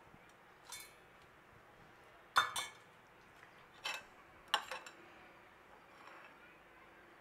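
Metal slotted skimmer clinking against a kadhai of frying oil while lifting out fried besan boondi: a few sharp, ringing clinks, some in quick pairs, the loudest about two and a half seconds in.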